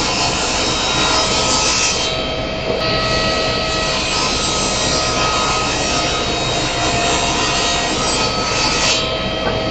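Table saw running and cutting angled rips through wooden panels, one after another. The cutting noise eases briefly about two seconds in, then a second cut runs until near the end.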